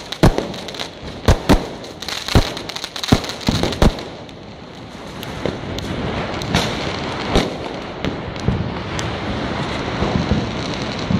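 Fireworks going off: a quick, irregular run of sharp bangs for about four seconds, then a dense, steady crackle with a few louder bangs scattered through it.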